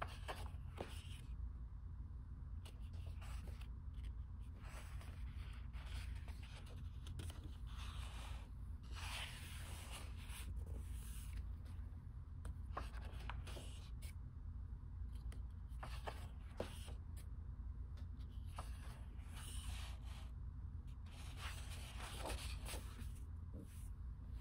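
Large heavy pages of an oversized hardcover art book being turned and smoothed by hand: paper rustling and sliding in repeated swishes every few seconds, over a steady low hum.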